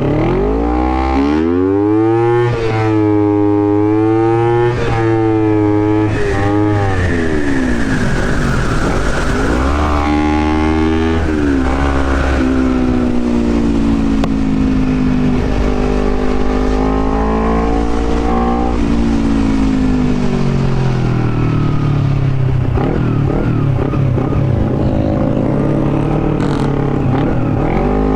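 Honda CBR250RR motorcycle engine, fitted with an open air filter, revving up and down as it accelerates, shifts gears and eases off several times.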